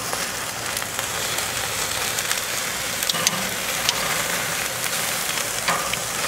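Chicken wings sizzling directly over burning mesquite lump charcoal, a steady hiss with a few scattered crackles and pops as rendering chicken fat drips onto the coals.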